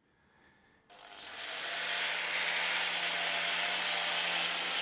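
A hand-held power tool grinding on the end of a steel pipe. It starts about a second in, builds up over a second, and then runs as a steady, harsh hiss with a faint hum underneath.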